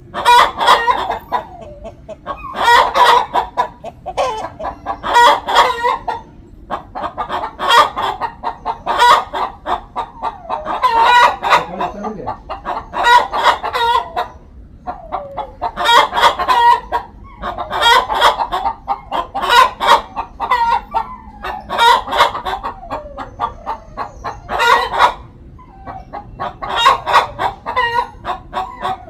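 A hen cackling loudly: bouts of rapid clucks, each ending in a drawn-out squawk, repeating about every two seconds. This is the egg song a hen makes around laying, here before laying an egg.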